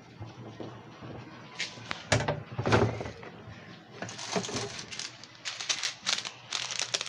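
A few knocks and rustles about two to three seconds in, then dense, irregular crinkling and crackling from about four seconds on.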